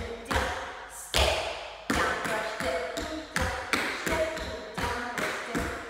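Tap shoes striking a hard floor in a step-down, brush, step, heel-down pattern: sharp metal taps and brushes at about two a second, each tap ringing briefly.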